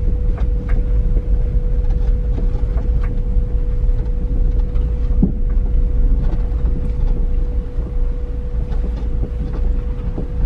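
In-cab sound of a lifted Honda CR-V driving over a rough dirt road: a steady low rumble of engine and tyres, a constant faint whine, and occasional small knocks and rattles.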